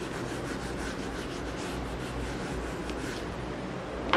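A whiteboard eraser rubbed back and forth across a whiteboard, wiping off marker writing in quick, even strokes that stop about three seconds in. A short sharp knock comes right at the end.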